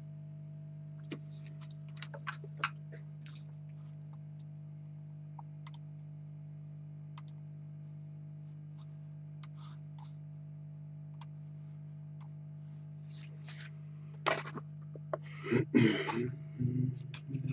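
Scattered light clicks and ticks over a steady low hum. A denser run of louder clicks and knocks starts near the end.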